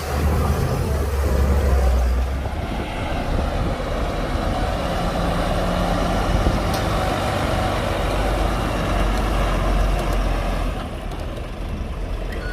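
Shantui DH17C2 bulldozer's diesel engine running steadily. A heavy low rumble in the first two seconds eases off, and the engine note drops a little near the end.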